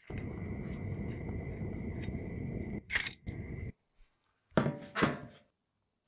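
Old rusty Zippo lighter case and insert being handled: a steady rushing noise for about three and a half seconds with a click near its end, then two loud knocks about half a second apart as the corroded metal pieces are set down on a metal tray.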